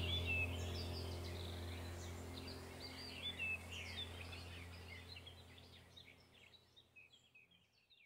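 Birds chirping over a low, steady musical drone. Both fade out gradually, down to silence near the end.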